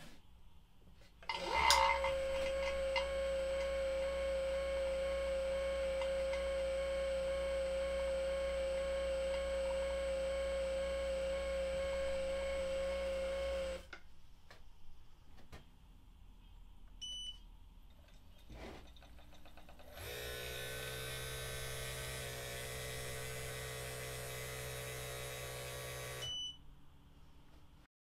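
Two Navac vacuum pumps run one after the other. The larger 6 cfm pump starts about a second and a half in and runs loudly with a steady hum and a strong high tone until it is switched off. After a few short beeps, the small 2 cfm NP2DLM, powered by a Milwaukee M18 battery, runs more quietly for about six seconds.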